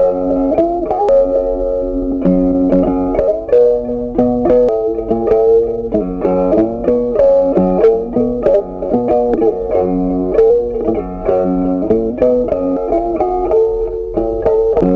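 Background instrumental music: a plucked guitar melody, note after note.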